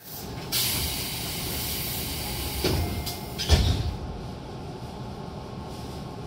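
Sliding doors of a Tobu 9050 series commuter train closing: a hiss of air, then a knock and, about three and a half seconds in, a louder thud as the doors shut.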